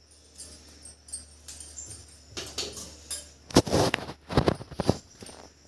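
A run of light clicks and rustles, then a quick cluster of sharper knocks and clatters in the second half: small kitchen handling noises.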